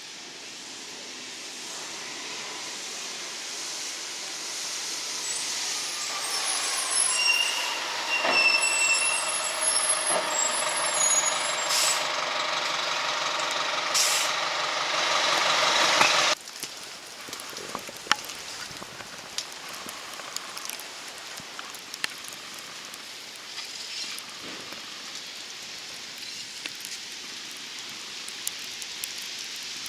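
A heavy road vehicle such as a truck grows louder as it comes near, with high squeals and hiss like air brakes. About halfway through it cuts off suddenly, leaving a quieter steady hiss with faint scattered ticks.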